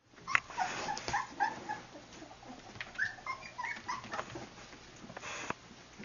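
Puppies at play giving short, high yips and whines in two quick flurries, with a few sharp clicks and a brief rustle about five seconds in.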